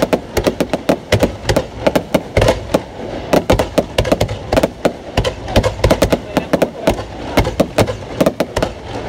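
Fireworks going off: a dense, irregular run of sharp bangs and pops, several a second.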